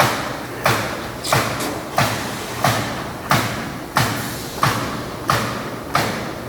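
Robot-mounted pneumatic nail gun driving nails into a wooden truck bed, firing in an even rhythm of about three shots every two seconds, each a sharp thud.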